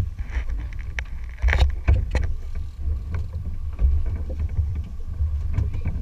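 Wind rumbling on the microphone and water slapping a small fishing boat's hull, a low, uneven rumble, with a few short knocks in the first couple of seconds.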